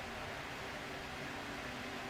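Steady background hiss of room tone with a faint low hum, and no distinct events.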